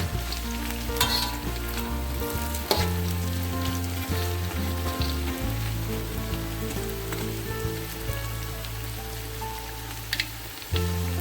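Food sizzling as it fries in hot oil, with a few sharp clinks of stirring. Background music with held chords plays underneath.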